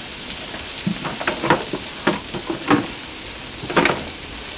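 Chopped onion, garlic and chili peppers sizzling in oil on a Blackstone steel flat-top griddle, a steady hiss broken by a few short, sharp pops.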